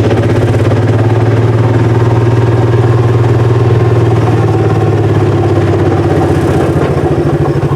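Engine of a Mule utility vehicle running steadily, a loud low drone with an even pulsing throb.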